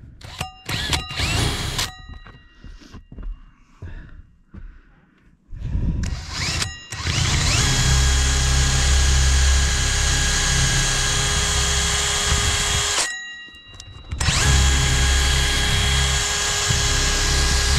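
Power drill driving a hole saw that seems very dull: a few short trigger bursts, then a long steady run, a brief stop about 13 seconds in, and the drill running again.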